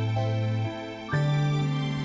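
Instrumental music: sustained chords over a held bass note, moving to a new chord a little over a second in.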